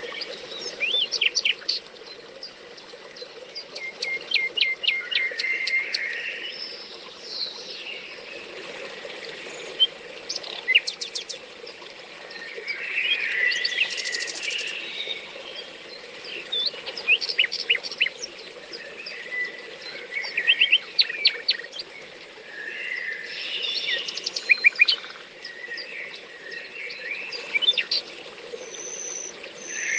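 Several songbirds singing and calling at once, with many short chirps and quick trills coming and going, over a steady low rush of flowing water from a brook.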